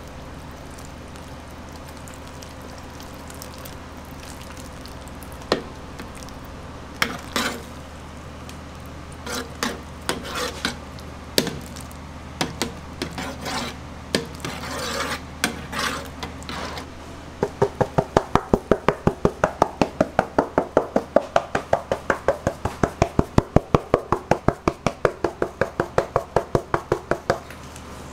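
A metal ladle spreading tomato sauce over a pizza in a pan, with scattered scrapes and knocks. About two-thirds of the way through, a spice shaker sprinkling dried oregano starts a fast, even rattle of about four shakes a second for some ten seconds. A steady low hum runs underneath.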